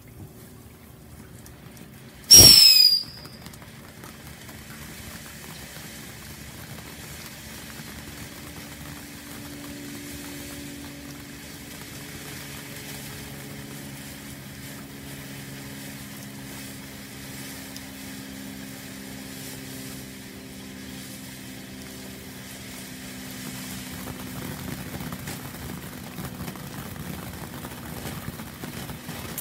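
Consumer firework fountain burning, a steady spark-shower hiss, after a brief very loud sweeping burst about two seconds in as it flares up. A faint low steady hum runs underneath.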